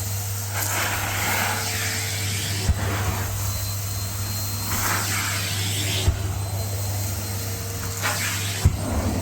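Numatic Hetty vacuum cleaner running steadily while its tool sucks up a crunchy dry dirt mix, the gritty hiss of debris through the hose swelling and fading. The tool knocks sharply three times.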